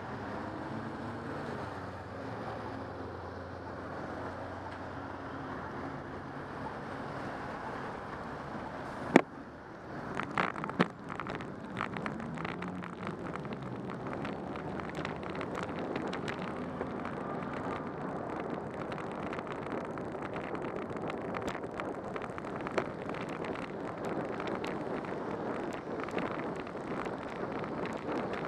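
Car traffic on a wet road in the rain, heard from a bicycle camera: cars running past at first, then a sharp click about nine seconds in. After that, steady wind and road hiss while riding, with many small crackling ticks of raindrops hitting the camera housing.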